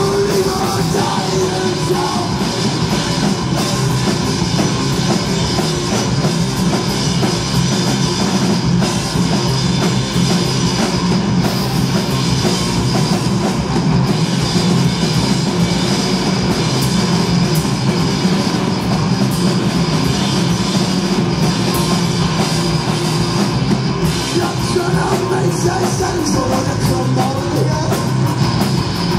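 Doom metal band playing live: fuzz-distorted electric guitars over a drum kit, a loud, dense and unbroken wall of sound.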